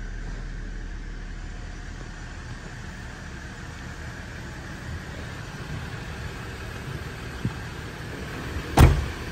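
Steady low mechanical hum and rumble. About nine seconds in, one sharp, loud knock.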